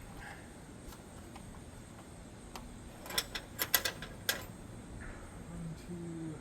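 A handful of sharp clicks and knocks, bunched together from about three to four and a half seconds in, as tools and hardware are handled.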